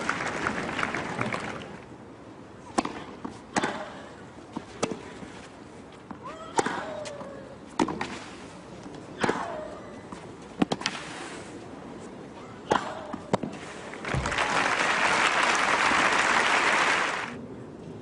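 Tennis rally on a clay court: sharp racket-on-ball strikes about once a second, several followed by a player's short grunt, then the crowd applauding when the point ends. Applause also fades out in the first second or so.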